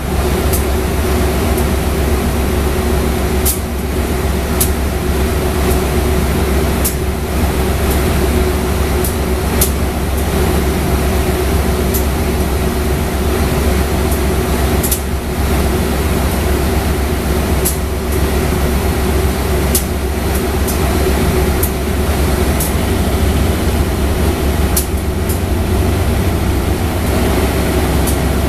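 Diesel train engine running steadily, a low rumble with a held tone that does not change in pitch. Scattered sharp clicks sound over it.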